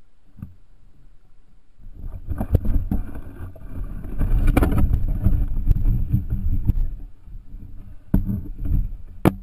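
Water splashing and sloshing right at the microphone, rising about two seconds in into a loud, rumbling churn, with sharp knocks near the end from the camera being handled.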